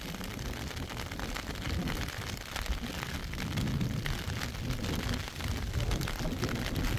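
Rain falling steadily: a dense rush of noise with many small ticks of drops landing.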